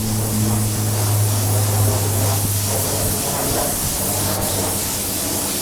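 Paint spray hissing steadily as a green coat goes onto a motorcycle wheel, with a low steady hum underneath that fades out about three seconds in.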